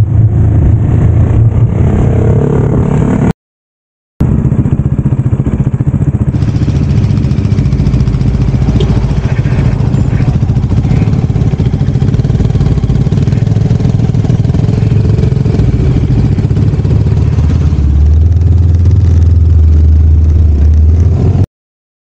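Bajaj Dominar 400's single-cylinder engine running as the motorcycle is ridden along the road. It settles into a steadier, deeper note shortly before the end, and the sound drops out completely for under a second about three seconds in and again near the end.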